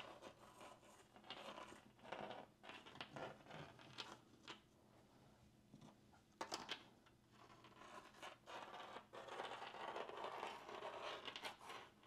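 Faint scratching and scraping of a magnet being swept across textured drywall to locate drywall screws, with a couple of light clicks about six and a half seconds in.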